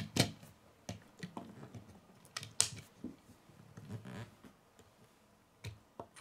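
Scattered sharp plastic clicks and taps of Lego pieces being pressed together and a small Lego truck being handled on a wooden table, about a dozen in all, the loudest about two and a half seconds in.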